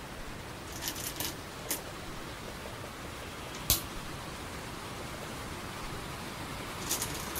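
Go stones clicking on a wooden board: one stone set down with a sharp snap about halfway through, with lighter clicks of stones handled early on and again near the end. A steady hiss runs underneath.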